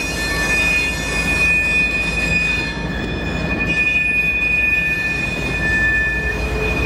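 Freight train rolling past: low rumble of a GE ES40DC diesel locomotive and its wheels on the rails, with a steady high-pitched wheel squeal, two shrill tones held throughout.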